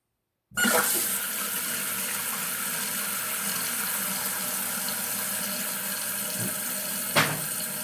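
Newly installed toilet fill valve refilling the tank once the water is turned back on: a steady hiss of water rushing in that starts suddenly about half a second in, with one brief knock near the end.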